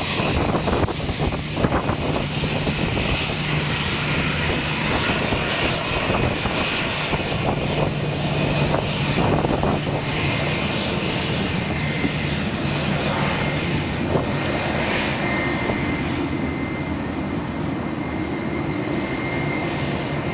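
Jet airliner engines running loud and steady, with a high whine that comes in about fifteen seconds in.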